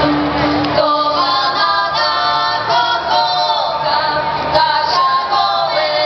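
Polish folk band playing live with female singing, which comes in just under a second in as a held low note drops away. The voices sing with a wavering vibrato over the band.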